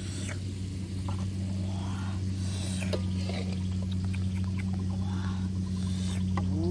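Metal ladle scraping and clinking in a steel wok and against a plate as fried eggs are scooped out and served, a string of short scrapes and clicks over a steady low hum.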